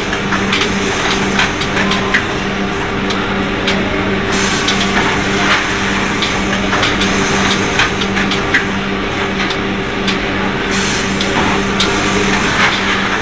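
Automatic woven-bag packing machine running: a steady machine hum with irregular sharp clicks and knocks over it.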